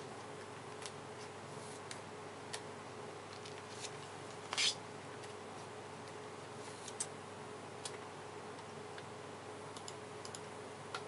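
Magic: The Gathering cards being dealt one by one onto a wooden table: scattered light taps and flicks, with a louder brush of a card about four and a half seconds in, over a faint steady hum.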